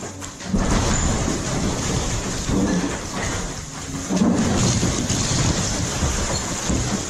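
Old house being demolished: continuous crashing and crackling of breaking timber and falling debris, with heavy rumbling surges about half a second in and again about four seconds in.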